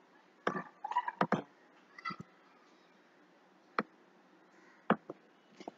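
Computer keyboard keys being pressed: about a dozen short, irregular clicks, several in quick succession in the first couple of seconds, then a few scattered taps.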